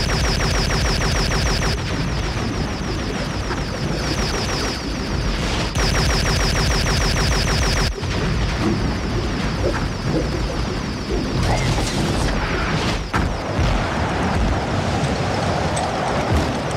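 Cartoon sound effects of an automated gun turret firing rapid repeating energy shots, the shots running close together for about eight seconds. After that they give way to scattered, irregular blasts.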